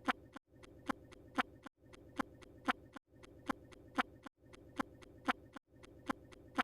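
A short looped sound effect: a steady low hum with two sharp ticks about half a second apart, repeating about every 1.3 seconds with a brief cut to silence between repeats.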